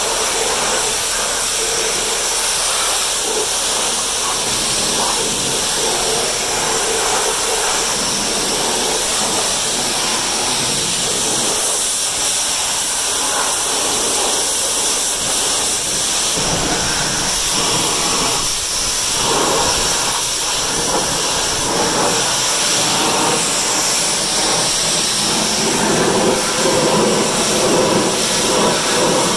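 Pressure washer spray blasting water onto a zero-turn mower's deck and then a rear tyre: a steady, loud hiss of the jet and spattering water, growing fuller and louder near the end as the spray hits the tyre.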